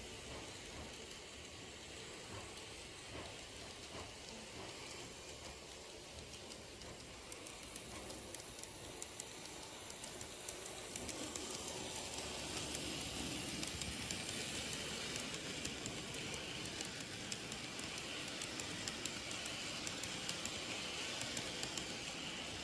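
N-gauge KATO EF58 electric locomotive and old-style passenger coaches running on model track: a steady rolling rattle with fine rapid clicking from the wheels, growing louder about halfway through as the train comes near.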